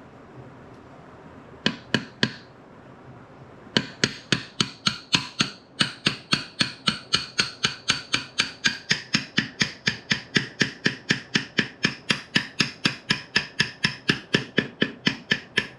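Hammer tapping a shaft into a 1939 Ford transmission case, metal on metal. Three quick strikes, then steady tapping at about three or four blows a second, each with a short metallic ring, as the lower (cluster gear) shaft is driven home.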